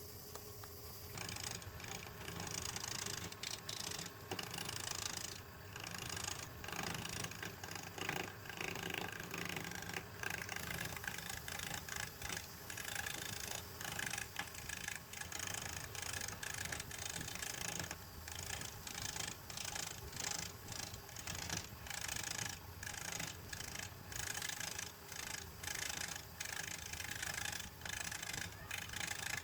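A cutting tool scraping wood on a spinning woodturning lathe, a hissing cut that starts about a second in and is broken by many short, irregular pauses.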